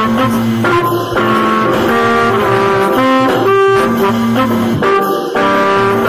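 Background instrumental music: a melody of held notes that change about every half second.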